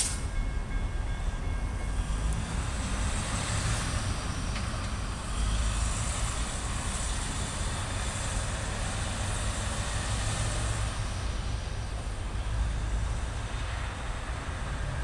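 Road vehicles, a tractor-trailer among them, driving across a railroad grade crossing over a steady low rumble. The hiss of the passing traffic swells a couple of seconds in and fades again after about ten seconds.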